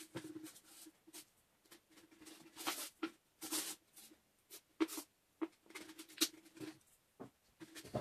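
Masking tape being pulled off the roll and wrapped around a thin plastic bottle: irregular short rips and crinkles of tape and plastic being handled.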